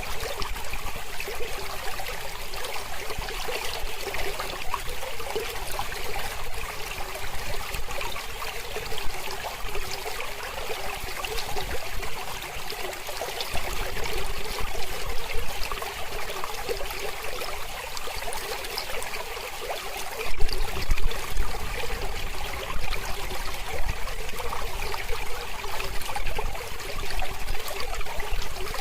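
Mountain river flowing in a steady rush of water, briefly a little louder about twenty seconds in.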